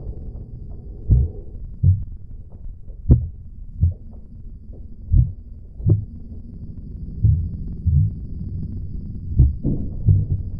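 Heartbeat sound effect: low thumps in pairs, about one pair every two seconds, over a steady low hum.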